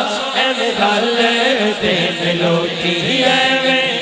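A man singing a Punjabi naat (devotional song) with microphone amplification, drawing out long wavering, ornamented notes.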